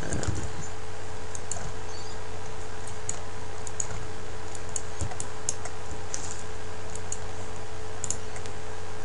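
Scattered light clicks of a computer keyboard and mouse, irregular, over a steady electrical hum.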